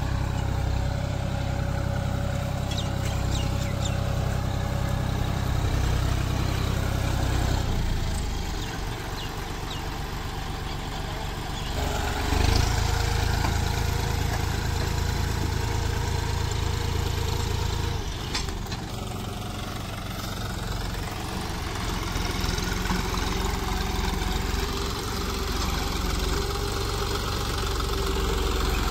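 John Deere 5050D tractor's three-cylinder diesel engine running steadily under load as it pulls a tine cultivator through wet soil. The sound dips and swells a few times as the tractor moves past.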